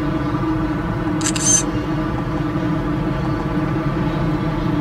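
Train crossing a steel truss bridge, heard across the water as a steady rumbling drone with a held hum. About a second in, a short burst of rapid camera shutter clicks close by.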